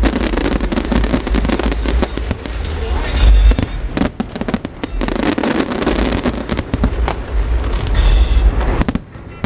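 Large fireworks display: a dense run of bangs and crackling bursts over a heavy low rumble, thinning out near the end.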